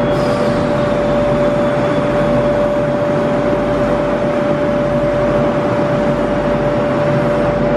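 Hanger-type shot blasting machine running: a loud, steady mechanical hum and rush with one constant mid-pitched whine over it.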